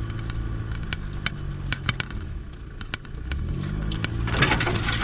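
Vehicle engine running as it jolts over a rough unpaved road, with many sharp clicks and knocks and scratching from the hand-held tablet. The engine pitch rises about three and a half seconds in, and a burst of rattling noise follows near the end.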